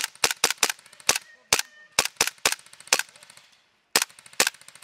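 Tokyo Marui Hi-Capa 4.3 gas blowback airsoft pistol firing about a dozen sharp single shots in quick, uneven succession. A pause of nearly a second comes before the last two shots.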